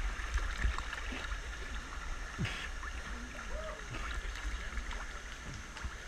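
Water sloshing and gurgling against a GoPro held right at the surface of a river pool, over a steady rush of flowing water, with a few small splashes.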